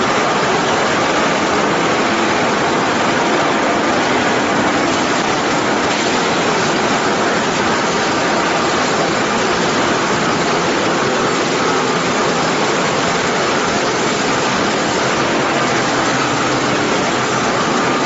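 LDPE film washing line running: machinery and washing water making a steady, loud, even rushing noise that never changes.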